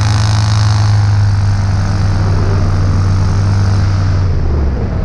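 Paramotor trike engine running steadily at a strong, even throttle, a loud low drone with a hiss of air over it, which drops away about four and a half seconds in as the power comes off.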